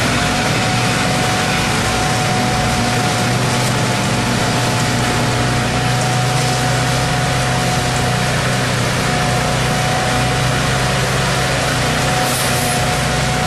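Heavy construction engines running steadily, a low drone with a thin steady whine above it, from a concrete mixer truck discharging concrete and a bridge deck finisher powered by 25 hp air-cooled Kohler gasoline engines.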